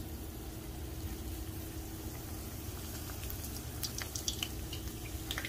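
Rolled flour-tortilla burritos frying in shallow canola oil in a pan: a steady sizzle of bubbling oil, with a few faint crackles from about three seconds in.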